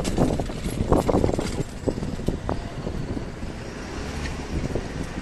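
Railway level-crossing barrier boom swinging up to open: its drive and hanging mesh skirt give a run of clunks and rattles in the first couple of seconds, then settle into a steady low rumble.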